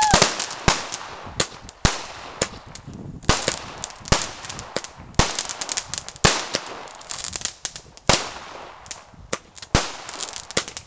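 New Year's fireworks: firecrackers and rockets going off all around, a string of sharp bangs at irregular intervals, some in quick succession, with crackling in between. A whistling rocket bursts with a bang right at the start.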